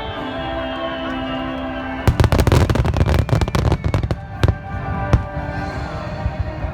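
Fireworks going off in a rapid volley of bangs and crackles for about two seconds, then two more single bursts, over steady music.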